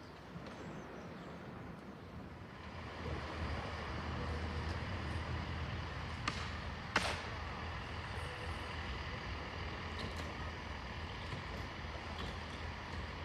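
Steady rumble of the HST diesel train, growing louder about two and a half seconds in and then holding, with a low hum under it. Two sharp clicks come about midway.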